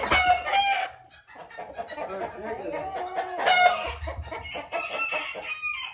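Chickens clucking and squawking, several calling at once, agitated and worked up, with a dull bump about three and a half seconds in.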